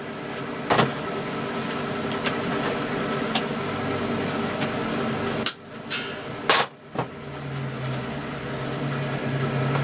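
SIP MIG welder running with a steady hum and hiss. It is broken a little past the middle by a few sharp clicks, after which a deeper hum sets in.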